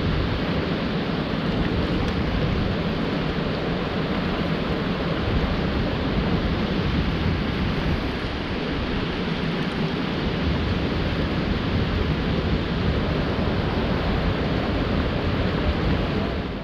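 Shallow river rapids rushing over rocks: a steady, even wash of water.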